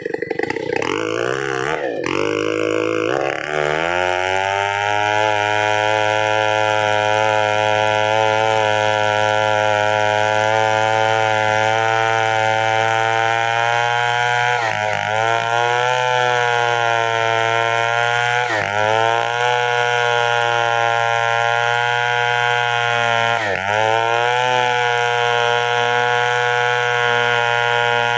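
Two-stroke chainsaw engine revving up, then running at a steady high pitch. Its pitch drops briefly and recovers about four times, as the engine speed sags and picks up again.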